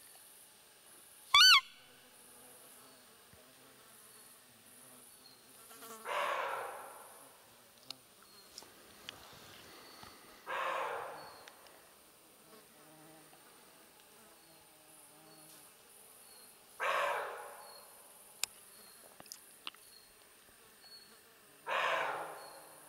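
A roe deer call (hunter's lure) blown once about a second and a half in, giving a short, loud squeak that wavers in pitch, to draw in a roe buck. Four short breathy rushes follow a few seconds apart, over a faint buzz of insects.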